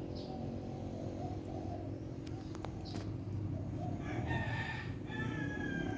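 A rooster crowing about four seconds in: one long call with a short break in the middle, over a steady low hum. A few sharp clicks come shortly before it.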